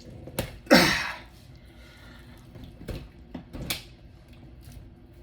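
A man's straining grunt about a second in, falling in pitch, with a few sharp clicks and knocks around it as he forces apart a raw turkey to spatchcock it.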